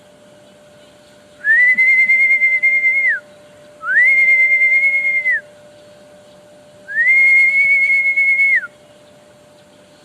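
A bird calling with three long, level, high whistles, each about a second and a half, sliding up at the start and dropping at the end, with a slight flutter.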